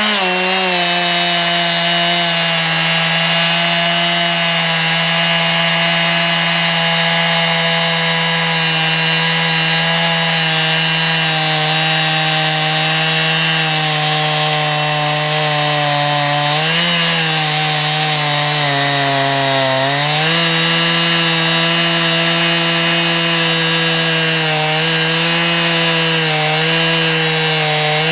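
Two-stroke chainsaw on a chainsaw mill ripping a log lengthwise, the engine running at a steady high speed under load. Its pitch sags twice, a little past halfway, as the cut bogs it down, then picks back up.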